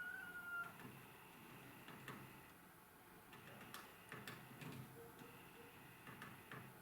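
Woodpecker pecking at a tree: about six faint, separate taps spread across several seconds, not a rapid drum roll. A short wavering call sounds in the first half-second.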